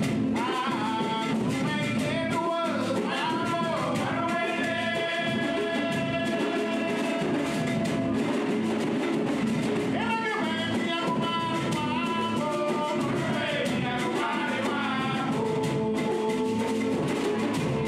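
Live Garifuna song: a man singing a melody in long held notes, some of them wavering, over a strummed acoustic guitar and hand drums.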